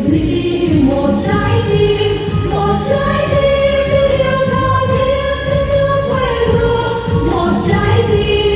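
A Vietnamese song sung over instrumental accompaniment, with long held sung notes.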